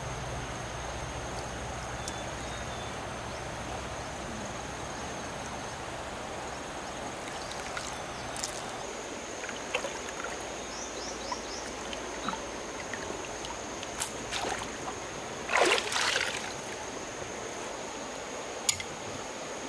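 Water trickling and running steadily, with scattered small knocks and a louder splash-like burst about sixteen seconds in, then a sharp click near the end. A thin, steady high tone runs underneath.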